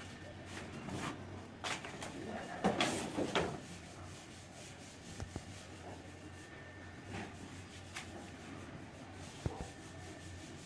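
Protective wrapping being pulled off a metal cover plate by hand: rustling and crinkling, loudest in a burst about two to three and a half seconds in, then quieter rustles and a few light clicks as the plate is handled.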